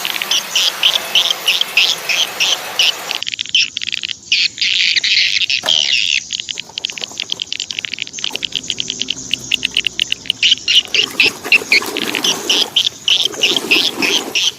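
Insects chirping in fast, evenly repeated pulses that go on without a break.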